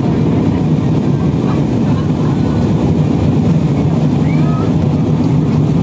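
Steady airliner cabin noise heard from a window seat: the low, even rush of the jet engines and airflow during the descent.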